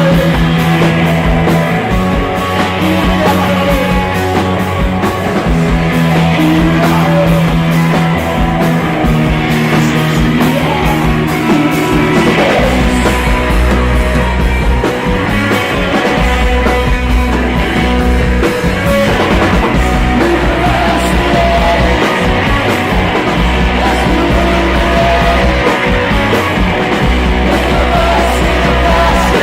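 Rock band playing live, loud and steady, with the low end dropping to deeper held notes about twelve seconds in.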